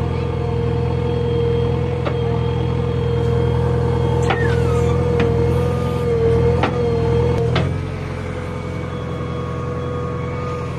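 JCB 3DX backhoe loader's diesel engine running under digging load, with a steady hydraulic whine over it and several sharp metallic clanks from the working backhoe arm and bucket. The engine note eases off about three quarters of the way through.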